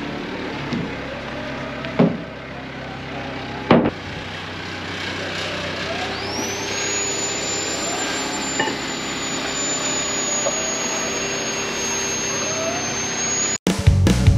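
Forklift engine running steadily as it loads a load of metal frames onto a flatbed trailer, with two sharp clanks about two and four seconds in and a thin high whine joining about halfway. Rock music cuts in abruptly near the end.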